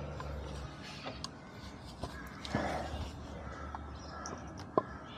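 A low steady hum with a few small clicks and taps, and one sharp click near the end, from parts being handled during hand work on the motorcycle's gear-shift area. About two and a half seconds in there is a brief, harsher sound.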